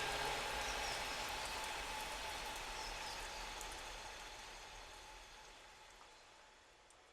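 Dense hiss-like ambient texture with a few faint held tones and scattered tiny clicks, fading out steadily over several seconds.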